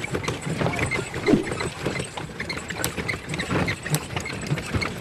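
Horse-drawn carriage rolling along: continuous rattling, clicking and creaking of the carriage and harness, with the horse's hoofbeats.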